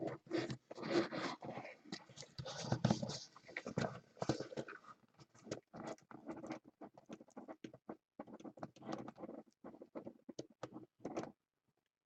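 Cardboard box and packing being handled and opened, with irregular rustling, scraping and small knocks that grow sparser after the first few seconds.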